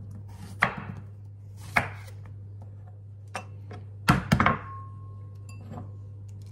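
Chef's knife cutting through a zucchini onto a wooden cutting board, two sharp knocks in the first two seconds. About four seconds in, a quick cluster of clicks as an egg is cracked against the rim of a ceramic bowl, which rings briefly.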